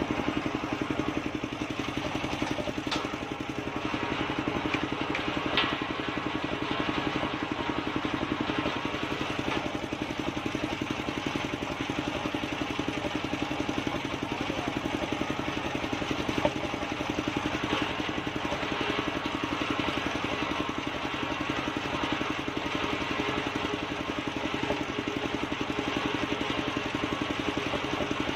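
Engine of a large circular saw bench running steadily, its blade spinning without a cut under way, with a couple of short sharp knocks.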